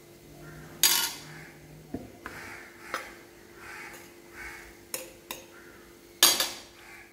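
A steel spoon clinking and scraping against a stainless-steel puttu maker as rice flour is spooned into it. There are several sharp clinks, the loudest about a second in and another near the end.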